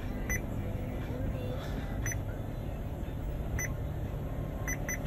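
Android head unit's touchscreen giving short key beeps as its on-screen buttons are tapped, five in all, the last two in quick succession near the end. Underneath runs a steady low hum in the cab from the idling engine and air-conditioning fan.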